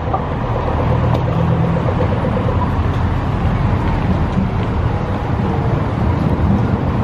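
Road traffic: a steady rumble of vehicle engines and tyres, with the low engine drone strongest in the first couple of seconds.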